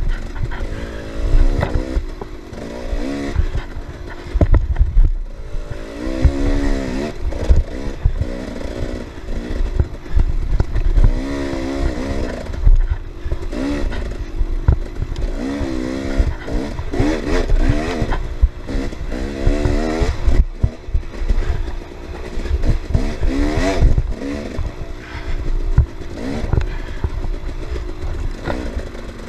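Off-road dirt bike engine, heard from on the bike, revving up and dropping back again and again as it is ridden hard over a rough trail. Frequent knocks and rattles from the bike bouncing over the bumps.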